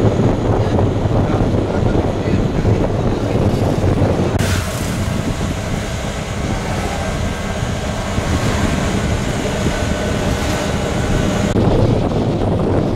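Three-wheeler auto-rickshaw (tuk-tuk) engine running as it drives along, a steady low rumble with wind on the microphone. The sound changes abruptly about four seconds in to a hissier rush and switches back near the end.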